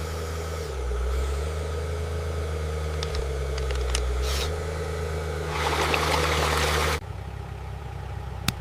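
Toy borewell drilling machine's engine running with a steady low drone, its pitch dipping twice. It cuts off abruptly about seven seconds in, leaving a quieter whir, and a single sharp click comes near the end.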